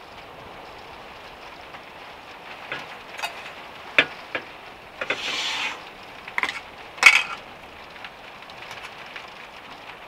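Sharp knocks and clicks of a small plastic tub being handled, its lid opened and set down on a wooden table, with a short rustle in the middle, over a steady background hiss.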